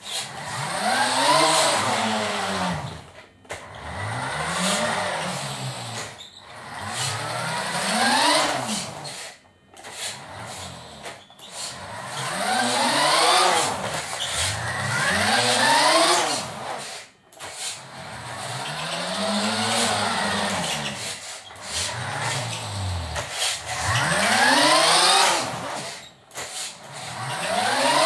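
Vintage Taiyo Jet Fighter RC buggy driving fast over a wooden floor, its small electric motor whining. The pitch rises and falls again and again as the car speeds up and slows, with short pauses between runs.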